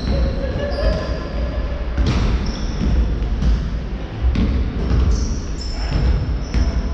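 Basketball game on a wooden hall floor: a basketball bouncing in irregular thuds, mixed with short high sneaker squeaks and running footsteps, in a large echoing hall.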